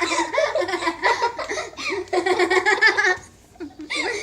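Girls laughing hard, with a short pause about three seconds in before the laughter starts up again.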